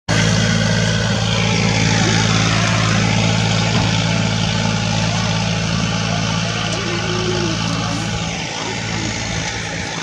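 An engine running steadily with a constant low hum over a broad outdoor hiss; the hum fades away about eight and a half seconds in.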